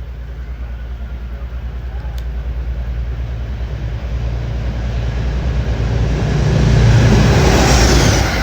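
Metro-North train led by a GE P32AC-DM locomotive approaching and passing, its low, evenly pulsing engine throb growing steadily louder. The sound is loudest about seven seconds in, with rail squeal and hiss, and drops right at the end as the locomotive goes by.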